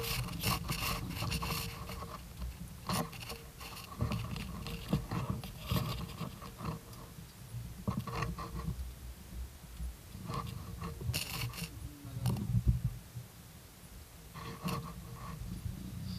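Leaves and twigs scraping and rubbing against the camera housing in irregular bursts, loudest about twelve seconds in.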